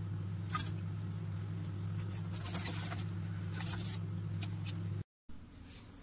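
Spoon scraping and swishing around a steel saucepan, stirring dark chocolate syrup until the sugar melts, in short scrapes over a steady low hum. It stops abruptly about five seconds in.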